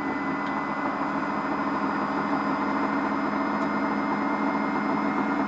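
Small hobby table saw running freely with its blade spinning and not cutting: a steady motor hum with a thin high whine.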